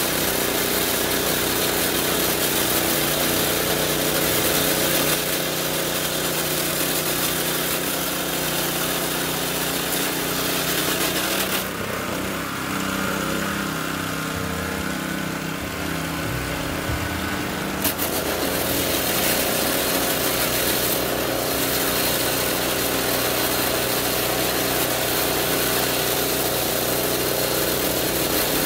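A small engine running steadily. Its sound changes for about six seconds in the middle, the hiss dropping away and the pitch shifting, then it returns to its earlier steady running.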